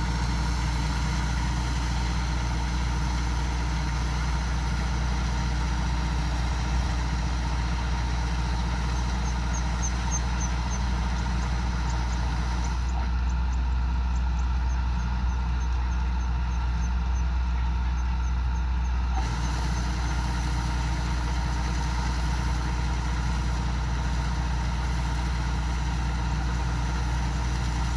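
Kubota DC-105X combine harvester's diesel engine running steadily under harvesting work, a constant low drone.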